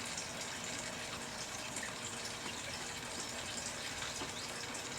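Steady background hiss with a few faint, scattered small ticks.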